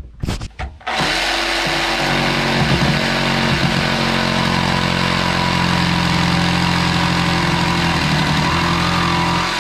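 Reciprocating saw cutting. It starts abruptly about a second in and runs at a steady motor pitch that wavers slightly under load, then stops sharply at the end.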